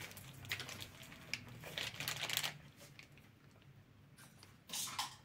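Faint crinkling of a plastic piping bag filled with frosting as it is gripped and squeezed, in short scattered rustles over the first two and a half seconds and again near the end.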